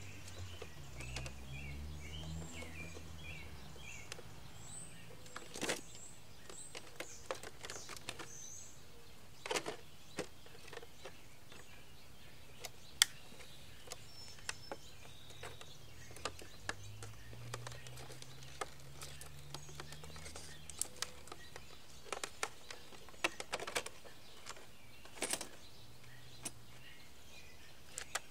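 Quiet outdoor ambience. Small birds chirp a few times in the first few seconds, sharp clicks are scattered throughout, and a low hum fades in and out.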